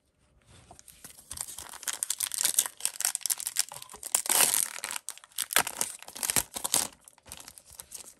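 Trading-card pack wrapper being torn open and crinkled, a dense run of crackling rustle that is loudest about four and a half seconds in and again near six seconds.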